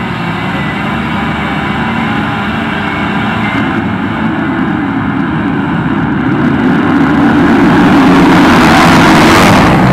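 A full start line of motocross bikes with engines running, then the pack launching and accelerating hard toward the listener, growing much louder over the last few seconds as the bikes sweep close by.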